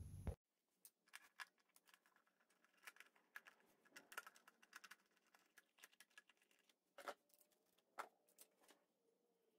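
Faint, scattered clicks and taps of a portable generator's plastic air filter housing and hoses being handled and pulled off the engine, the two clearest knocks about seven and eight seconds in.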